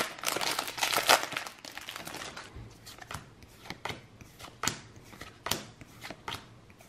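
Foil booster-pack wrapper crinkling for about a second and a half, then Pokémon trading cards flicked off the stack one at a time, a short sharp slide about twice a second.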